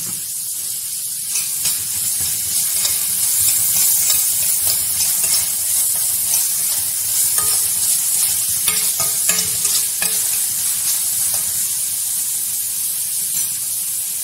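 Chopped onion, carrot and green capsicum sizzling in hot oil in a stainless steel kadai, stirred with irregular scraping strokes against the metal pan through the middle of the stretch.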